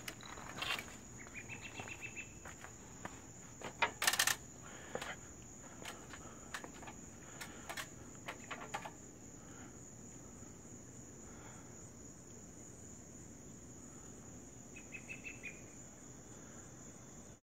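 Crickets chirring in a steady, high, even trill, with footsteps and scattered clicks over the first half. Short chirping trills come about a second in and again near the end. Everything cuts off suddenly near the end.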